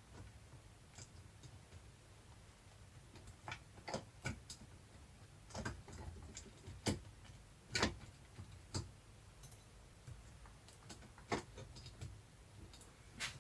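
Irregular light clicks and taps of hand tools and small engine parts being handled while a Yamaha XT250 engine is taken apart, with two louder knocks past the middle.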